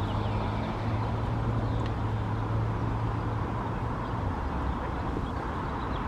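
A steady low engine hum, like a vehicle idling, stops about four seconds in, over constant outdoor background noise.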